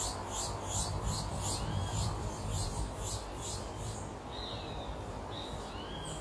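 Outdoor evening ambience: insects chirping in fast, even pulses, about four a second, until about four seconds in. A bird gives several short, arched chirps over a low background rumble.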